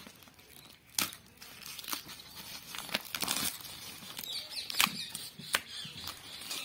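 Clear plastic wrap being peeled and torn off a cardboard box by hand, crinkling and rustling with irregular sharp crackles.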